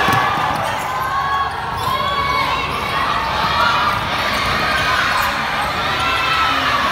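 Live basketball game in a gym: steady crowd noise with scattered shouts, and the ball bouncing on the court during play.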